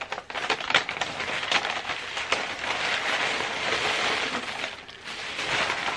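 Tissue paper and a brown kraft paper bag crinkling and rustling as they are unwrapped by hand, with a dense crackle and a brief lull about five seconds in.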